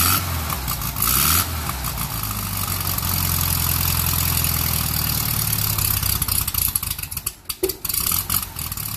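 Air-cooled VW Beetle 36 hp flat-four running through straight-piped pea shooter tailpipes, with a louder, rattier exhaust note than the stock muffler. It is revved briefly twice in the first second and a half, then settles into a steady idle.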